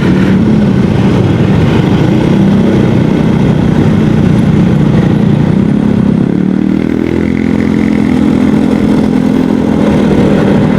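Yamaha XMAX 250 scooter's single-cylinder engine running steadily on the road, mixed with rumbling wind and road noise, its note rising about two-thirds of the way through.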